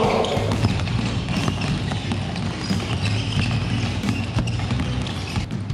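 Several basketballs being dribbled at once on a hardwood gym floor: many overlapping, irregular bounces.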